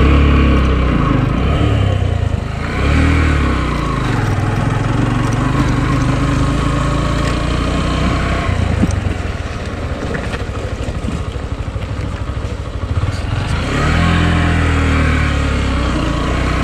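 Motorcycle engine running while riding. It revs up and drops back near the start, again about three seconds in, and again near the end, and runs steadier in between.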